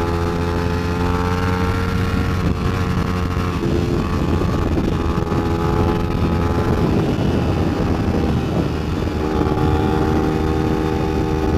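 Kawasaki Ninja 250's parallel-twin engine running under way. Its pitch rises slightly over the first few seconds, turns rougher and noisier in the middle, then settles into a steady drone near the end.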